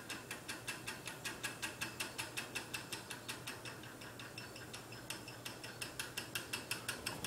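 SMC 30-inch six-blade ceiling fan running on high: a rapid, even clicking of about six clicks a second over a faint steady motor hum. This is the noise the fan makes at high speed; the owner says it wobbles a lot and makes a lot of noise.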